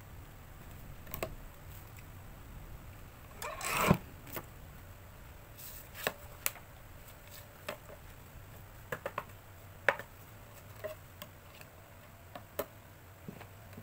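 Paper and tools handled on a guillotine paper cutter: a sliding rustle of kraft board ending in a sharp knock about four seconds in, then scattered light clicks and taps as a plastic triangle ruler is set down and shifted on the cutter's board.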